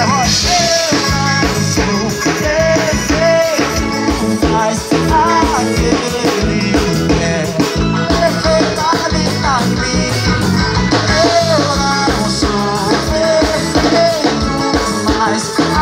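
Live band playing an instrumental passage between sung verses: drum kit and electric bass keep a steady beat under a lead melody with bending notes.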